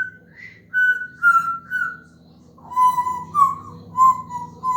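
African grey parrot whistling a little tune: a run of short, clear whistled notes with small upward and downward slides, a brief pause about two seconds in, then a second run of lower notes.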